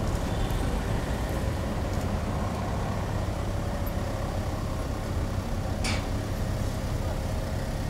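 Car engine running at low speed close by as a car pulls slowly past, a steady low rumble, with a short hiss about six seconds in.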